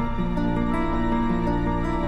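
Gentle instrumental background music: soft held notes stepping from one pitch to the next at a calm, even pace.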